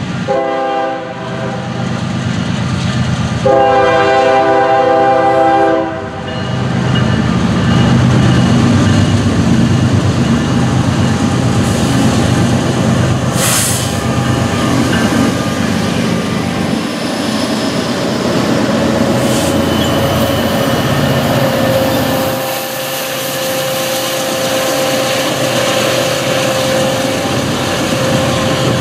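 Norfolk Southern diesel freight train led by a GE ES44AC locomotive, sounding its multi-note air horn for a grade crossing: a blast ending about a second in, then a long blast from about three to six seconds. Then the locomotives and intermodal cars rumble past with wheels clacking over the rail joints, a sharp clank partway through, and a steady whine joining in the second half.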